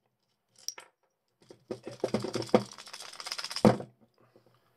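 Small metal items clinking and rattling as a torch is picked out from among kit on a workbench, ending in one loud knock.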